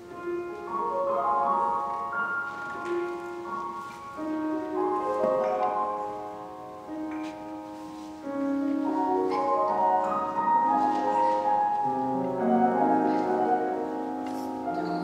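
Piano playing a slow, flowing piece of sustained, overlapping notes that step up and down, growing fuller about halfway through.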